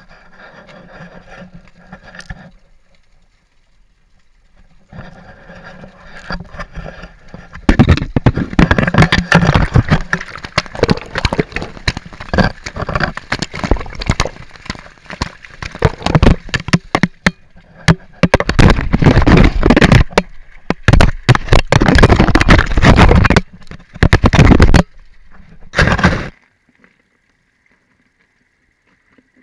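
Waterfall water striking an action camera's housing directly: faint steady rushing at first, then from about eight seconds in a loud, dense crackling and thudding with brief lulls, which cuts off suddenly near the end.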